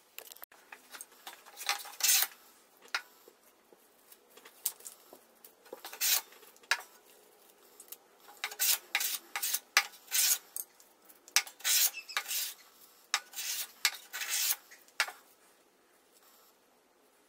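Metal bench plane taking short strokes along a board's edge: a string of brief rasping swishes at irregular intervals, thickest through the middle and latter part, with the dry crackle of wood shavings being handled.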